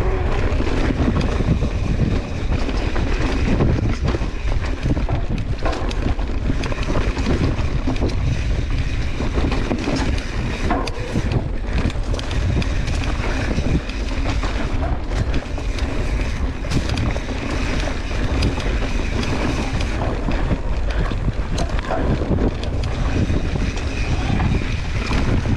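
Wind rushing over a handlebar-mounted camera's microphone as a Santa Cruz Hightower CC mountain bike rides a dirt singletrack, with tyre noise and frequent sharp knocks and rattles from the bike over the rough ground.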